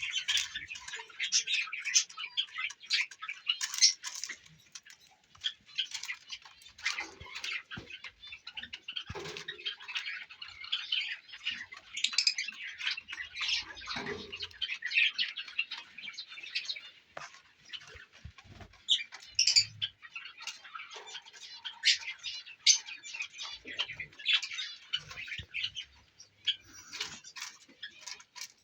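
Pet lovebirds and cockatiels chirping and chattering constantly together, with a few soft knocks mixed in.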